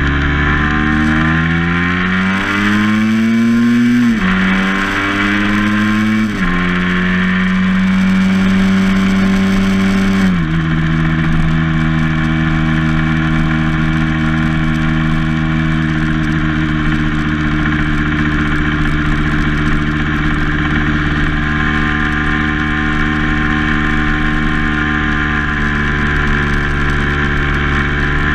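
Vehicle engine heard from onboard, pulling up through the gears. The pitch rises and falls sharply about four seconds and six seconds in, then holds and drops again near ten seconds into steady cruising, with wind and road noise underneath.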